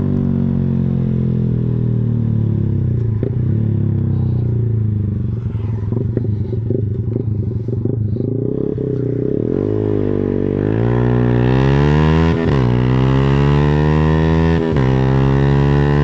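Yamaha scooter's single-cylinder engine breathing through an aftermarket Pro Liner muffler while riding. The exhaust note falls as the throttle is eased off, then rises again from about ten seconds in as the scooter accelerates, dipping briefly twice when the throttle is lifted.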